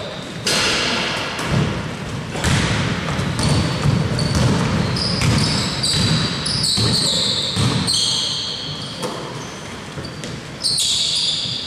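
Basketball game on an indoor court: the ball bouncing, sneakers squeaking in many short high squeals, and players' voices.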